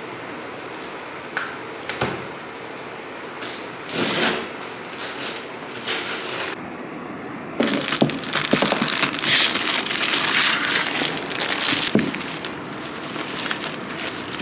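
A cardboard box being opened and handled, with a few short scrapes and knocks. From about halfway through, loud crinkling of plastic packaging as the wrapped item inside is handled.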